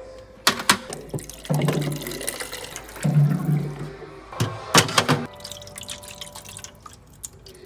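Water running from a bottled-water dispenser's tap into a small plastic scoop, in two spells with a steady low hum under the flow. Sharp plastic clacks from handling ice cube trays come about half a second in and again around the fifth second, and then a quieter trickle follows as the water is poured into the trays.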